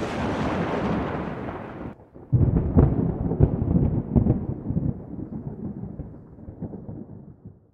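A rushing noise for about two seconds, then, after a short break, a rolling thunder rumble with sharp crackles that slowly dies away.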